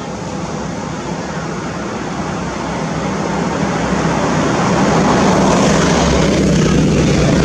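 A distant engine's steady drone with a low hum, growing louder over a couple of seconds about halfway through and then holding.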